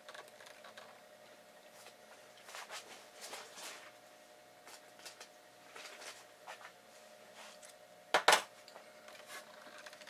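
Close handling noises from fingers working the plastic push-button switch bank inside an amplifier chassis: faint rubs, scrapes and small clicks, with a sharp double click about eight seconds in. A faint steady hum sits underneath.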